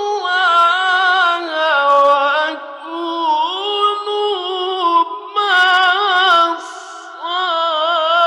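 A male Quran reciter chanting in the melodic mujawwad style, holding and ornamenting long, high notes, with short breaths between phrases.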